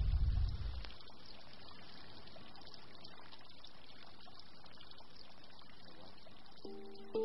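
A deep rumble fades away in the first second, leaving a steady faint rushing noise. Music with clear held notes begins near the end.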